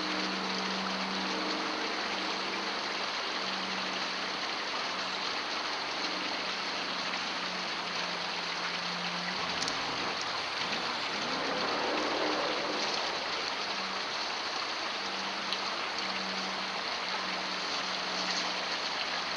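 Steady hiss like falling rain, with a low hum that comes and goes and a brief swell about halfway through.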